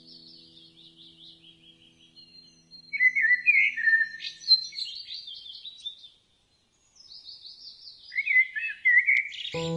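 Wild birds singing: several overlapping songs of rapid repeated trills and whistles, loudest in two spells, with a brief total drop-out just past the middle. A faint low sustained music chord fades out in the first half.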